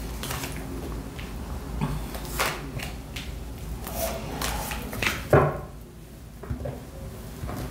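Baralho cigano fortune-telling cards being shuffled and handled, a run of quick flicks and taps, with one louder knock about five seconds in before the handling goes quieter.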